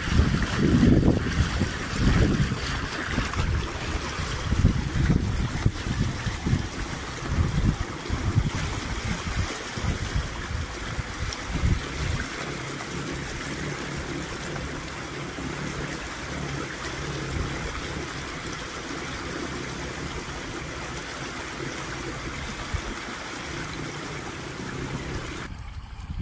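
Water rushing and splashing around a small boat on the move, with gusty low rumble of wind on the microphone for about the first twelve seconds. After that the wash settles and steadies, with a faint low hum under it.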